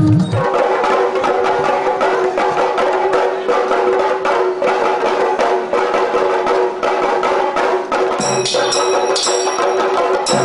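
Traditional music played loud: fast, dense stick drumming over a steady held tone, with bright metallic ringing joining in about eight seconds in.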